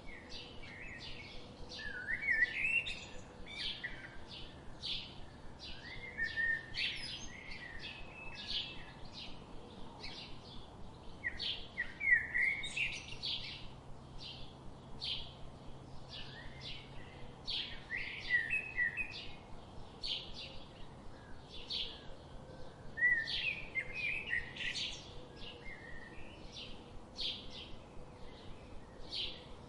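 Songbirds singing in a chorus: a steady stream of short, high chirps, with louder warbled phrases that come back about every five seconds.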